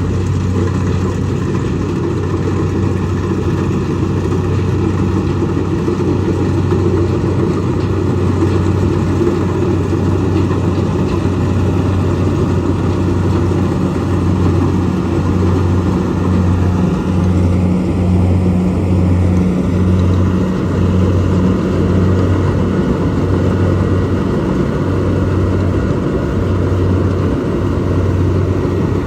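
Kubota DC70 rice combine harvester's diesel engine and machinery running steadily, with a low hum that pulses on and off for several seconds midway.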